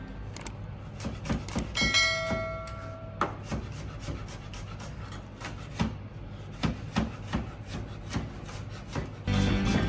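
Chef's knife mincing garlic on a plastic cutting board: irregular quick taps of the blade on the board, with scraping as the pile is gathered. A brief bell-like tone rings about two seconds in, and music comes in near the end.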